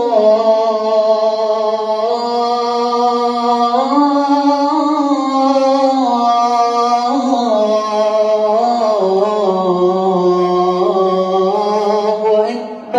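A muezzin's male voice singing the adhan, the Islamic call to prayer: one long, drawn-out, ornamented phrase that slides slowly up and down in pitch and ends about half a second before the end.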